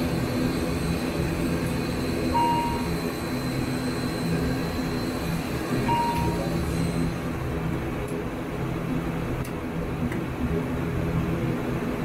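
ATR 72-600's two turboprop engines running at ground idle, heard inside the cockpit as a steady drone, with two short beeps about three and a half seconds apart.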